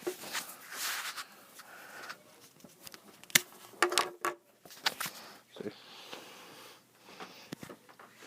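Plastic handling noise and several sharp clicks as the detachable wall-plug piece is slid off an Apple iPad 10W USB power adapter.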